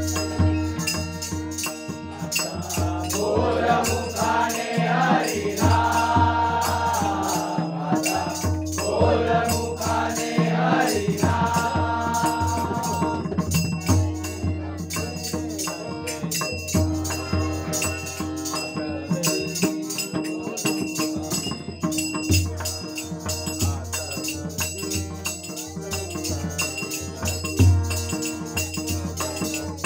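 Devotional bhajan: a young girl singing with other voices joining in, over a harmonium's steady held notes, a hand drum keeping a pulsing beat and small cymbals or a rattle ticking along. The singing fills roughly the first half; after that the harmonium and percussion carry on alone.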